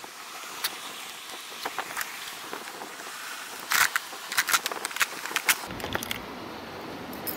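A clear plastic lure box being handled and opened. Scattered clicks, then a run of sharp clicks and rattles about four seconds in, from the latches and lid and the metal jigs inside.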